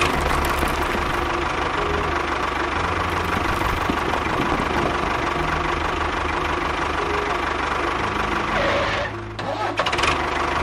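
Engine running steadily at idle with a knocking beat, dropping out briefly a second or so before the end.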